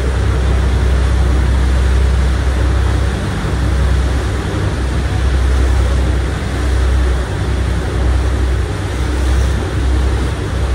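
Passenger ferry under way: a steady low rumble with a rushing noise over it, swelling and dipping every second or two.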